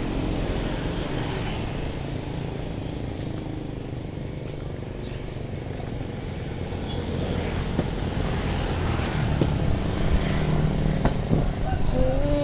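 Street traffic: motorcycles and cars passing on the road alongside, a steady low rumble that grows louder in the second half.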